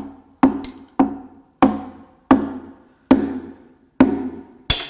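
Mallet blows on a Jeep 4.0 inline-six's cast-iron engine block, about eight strikes at an even pace, each with a short ringing. The blows jar the remaining lifters loose so they drop out of their bores.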